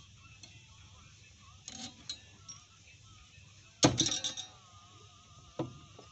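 A hand tool clinking against metal on foundation formwork. A few light clinks come about two seconds in, then one sharp clink about four seconds in that rings briefly, and a last knock near the end.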